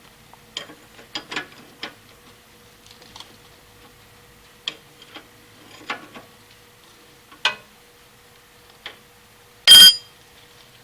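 Metal hand tools clicking and clinking against a spring shackle, in scattered separate knocks, then one loud metallic clank with a brief ring near the end.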